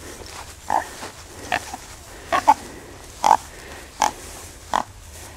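Wild hog giving short squealing calls, about one a second, six in all.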